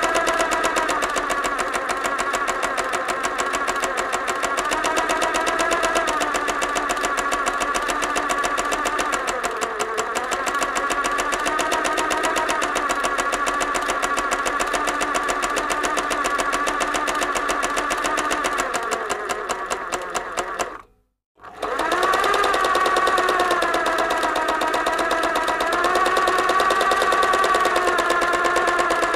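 Sewing machine running fast, a rapid even stitching rattle over a whine that drifts up and down in pitch as the speed changes. About two-thirds of the way through it slows, stops for a moment, then starts straight up again at full speed.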